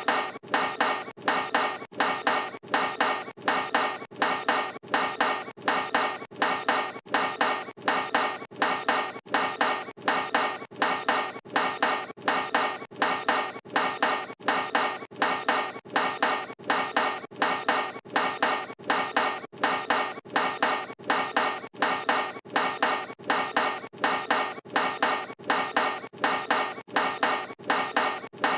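A basketball clanging off a metal hoop rim on a missed shot, with a ringing metallic clang and a few quick rebounds. The miss repeats evenly, a little more than once a second.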